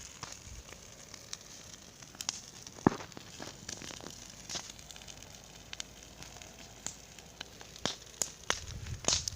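Large bonfire burning and crackling, with irregular sharp pops; the loudest pop comes about three seconds in.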